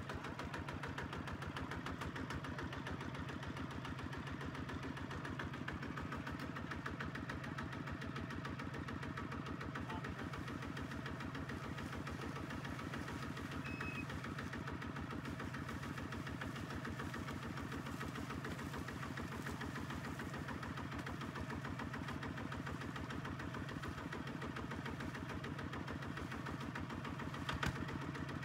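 Single-cylinder diesel engine of a HINOTA two-wheel walking tractor running steadily with a fast, even chugging beat. A single sharp knock is heard near the end.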